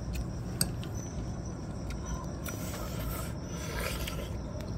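Someone eating a braised pig's trotter: biting and chewing, heard as scattered short clicks and soft rustling, one sharp click about half a second in, over a steady low hum.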